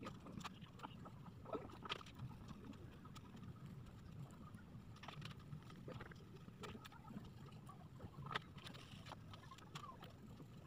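Faint scraping of a crayon being rubbed across drawing paper, with scattered small taps and knocks as the paper and tools are handled on the table, over a low steady room rumble.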